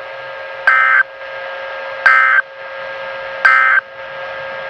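Three short EAS/SAME end-of-message data bursts from a NOAA Weather Radio broadcast, each about a third of a second of harsh electronic buzzing, about a second apart, marking the close of the weekly alarm test. A steady hum and hiss of the radio carries on between them.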